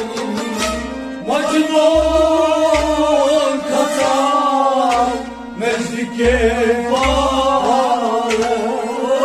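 Harmonium playing a Sufi devotional melody in sustained, gliding phrases, with a low beat thudding underneath roughly once a second.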